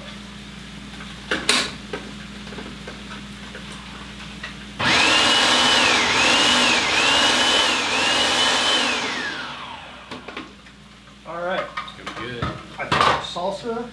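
Hamilton Beach food processor blending a chipotle-and-cilantro salsa. The motor starts suddenly about five seconds in and runs loud for about four seconds, its whine dipping and recovering a few times, then winds down.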